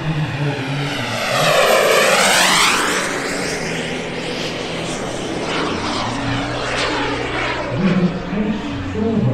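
Propeller aircraft flying past, loudest a couple of seconds in, its engine note sweeping down in pitch as it goes by, then droning on more steadily as it flies away.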